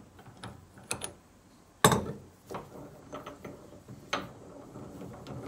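Socket wrench clicking on the top cap of a diesel injector clamped in a steel vise, with a loud metallic knock about two seconds in, then scattered lighter clicks of metal on metal as the cap is worked loose.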